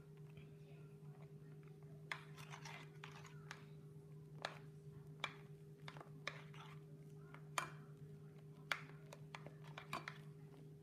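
A table knife mixing shaving cream and glue in a glass baking dish: faint, irregular clicks and scrapes of the blade against the glass, over a steady low hum.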